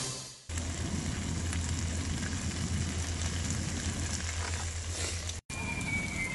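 Spicy webfoot octopus and pork belly sizzling on a griddle pan over a gas camp stove: a steady sizzle with a low hum underneath. It cuts out for an instant near the end, then carries on as fried rice sizzling on the same griddle.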